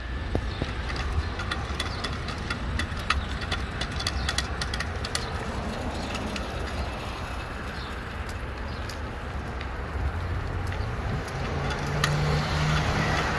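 Riding a bicycle along a street: a steady low rumble of wind and road noise, with a scatter of light clicks and rattles in the first half. Near the end a passing car's engine adds a steady low hum.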